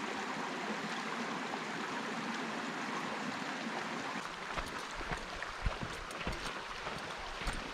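Creek water running steadily over rocks. From about halfway, irregular low thumps and short knocks come in over it.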